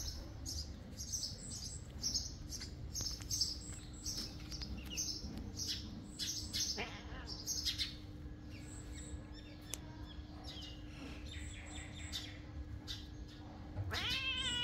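Small birds chirping over and over with short high calls, over a steady low hum. About a second before the end a cat gives one meow that rises and falls.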